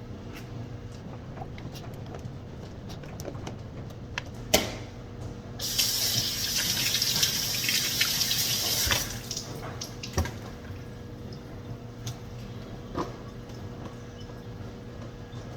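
Kitchen faucet running into the sink for about three seconds, after a sharp knock, with a few scattered clicks and knocks afterwards.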